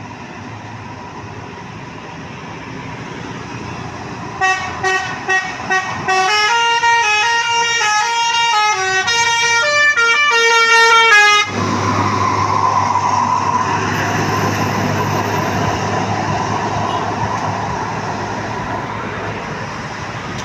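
A tour bus's basuri telolet horn: four short toots, then a tune of stepping multi-note tones for about five seconds that cuts off sharply. The bus's engine and road noise run under it, swell as the horn stops and then slowly fade as the bus goes by.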